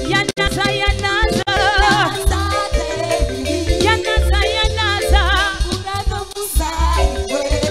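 Live gospel praise music: a woman singing with a wavering, ornamented voice over a band with held chords and a strong, regular bass beat.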